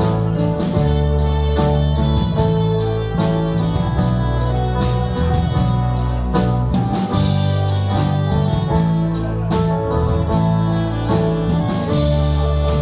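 A worship band playing an instrumental passage: sustained chords over a strong bass, with guitar and a steady beat of about four strokes a second.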